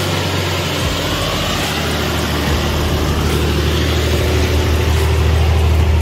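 Engine of a 4WD wagon running at low crawling speed on a muddy track, a steady low hum that grows louder as the vehicle comes past close by.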